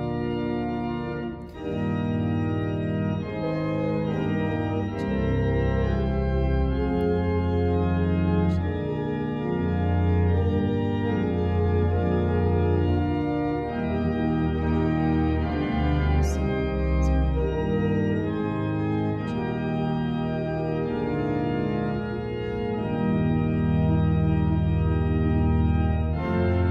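Church organ playing a piece in sustained chords, with a brief break about a second and a half in and deep bass notes joining about five seconds in.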